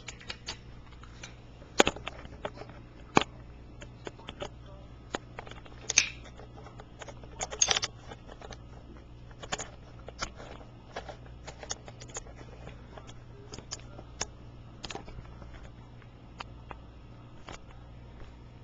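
Handling noise from a handheld camera: scattered irregular clicks, taps and rubbing, a few louder knocks, over a steady low hum.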